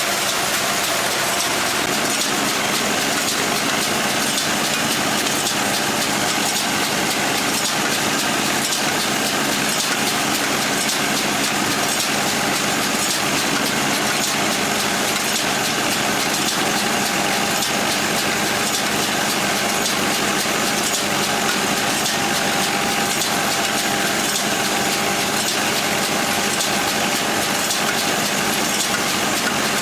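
Engine of a farm machine running steadily at an even speed, with a constant whine above the mechanical noise.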